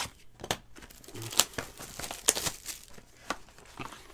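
Foil trading-card pack wrapper crinkling and crackling as it is handled in the hands, a string of sharp crackles with the loudest about one and a half and two and a half seconds in.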